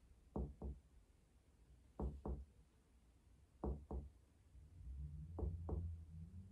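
Percussion of a patient's chest, finger tapping on finger: four pairs of quick taps about a second and a half apart, stepping down the midclavicular line to find the lower border of the lung.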